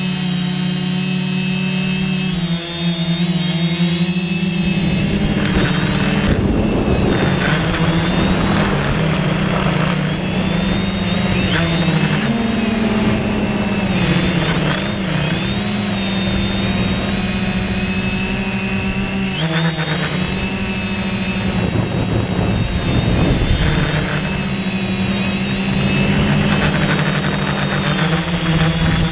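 Multirotor drone's electric motors and propellers running close to the microphone: a loud, steady hum with a high whine above it. The pitch wobbles up and down as the drone manoeuvres, with a rough, noisy rustle mixed in from about five seconds in.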